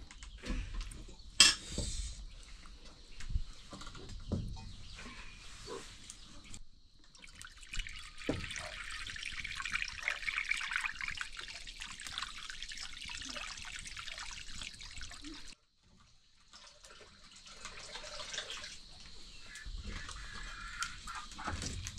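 Water pouring and splashing in a kitchen, with a few sharp knocks and clinks of utensils near the start. The water sound stops abruptly about two-thirds of the way through and starts again after a short gap.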